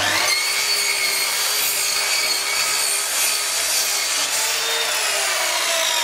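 Mitre saw running and cutting through a pine board: a steady, loud motor whine and sawing noise that starts abruptly, its pitch sagging slightly near the end.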